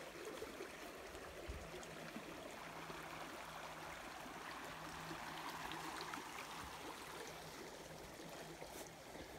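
Small, shallow creek flowing over a gravel bed: a faint, steady rush of running water, a little louder in the middle.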